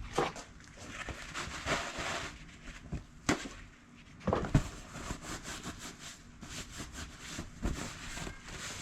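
Small parts of a power steering pump being handled and set down: scattered clicks and knocks, the loudest about four and a half seconds in.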